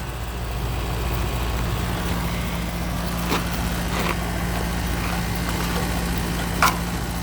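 Steady low machine hum of rooftop HVAC units running, with three short sharp clicks a little over three seconds in, about four seconds in and near the end.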